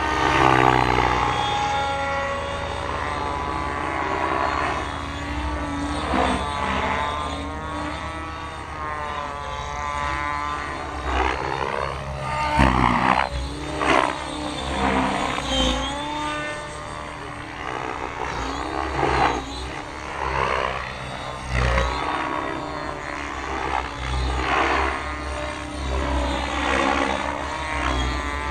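Blade 700X electric RC helicopter flying 3D aerobatics: the high motor and rotor whine keeps swooping up and down in pitch as the helicopter flips, loads its rotor and passes by, with sudden louder swells of rotor noise.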